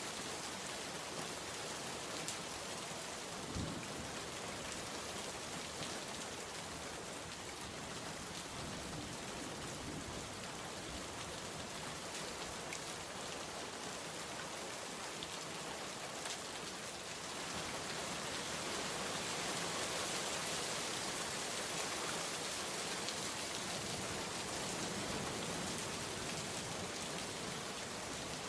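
Steady rain falling and pattering on a surface, with occasional single drops ticking out; the rain grows a little heavier about two thirds of the way through.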